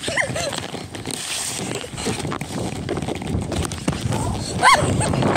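Hurried footsteps on stone paving with wind and handling noise rubbing on the microphone of a camera carried on the move. A few short high-pitched squeaks rise and fall over it, two at the start and the loudest near the end.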